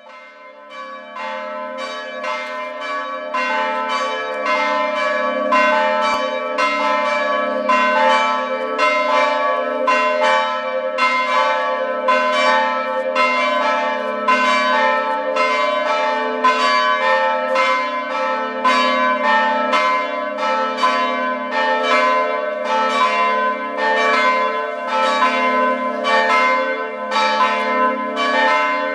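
Church bells ringing: a steady run of overlapping strokes, about two a second, with the tones ringing on between them. The sound fades in over the first few seconds.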